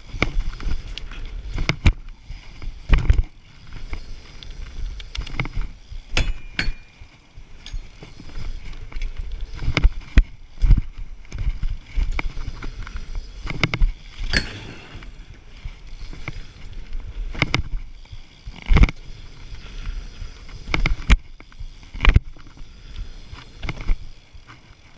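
BMX bike ridden over concrete ramps, heard from a camera on the rider: tyres rolling on rough concrete, with about a dozen sharp knocks and clanks as the bike lands and hits the ramps.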